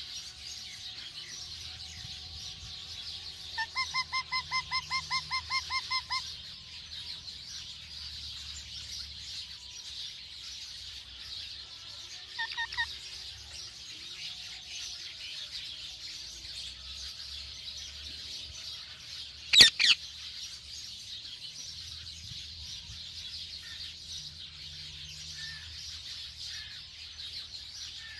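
Parrots calling over a steady high-pitched background chatter. About four seconds in comes a quick run of about a dozen repeated notes, and about two-thirds of the way through a loud double call.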